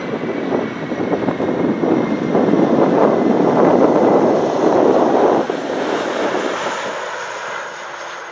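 Airbus A330-300 jet engines during the landing roll-out: loud at first, then fading steadily over the last few seconds, with a faint high whine that falls slightly in pitch. Gusty wind buffets the microphone throughout.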